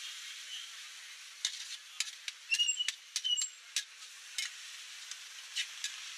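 Cubed beef sizzling in a hot wok while a metal spatula stirs it, scraping and knocking against the pan. A quick run of clicks and short metallic rings comes between about one and a half and four and a half seconds in.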